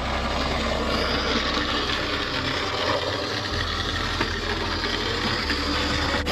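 Model diesel locomotive running along a model railway: a steady, engine-like running noise with a low hum that shifts a couple of times.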